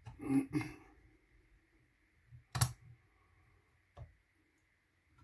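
A wrench clicks and knocks on the lock ring of a Bald Eagle front rest as the ring is tightened up against the 3D-printed rest body. There are two short rattling bursts at the start, a sharp click midway that is the loudest, and a lighter knock near the end.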